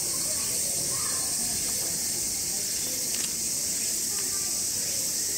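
Steady high-pitched chorus of insects, an unbroken hiss with no pauses, and faint voices murmuring underneath.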